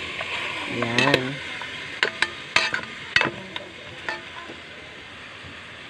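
Raw chicken pieces sizzling in hot oil in a metal pot as they are stirred with a spatula. Several sharp knocks of the spatula against the pot come about two to three and a half seconds in, and the sizzle fades toward the end.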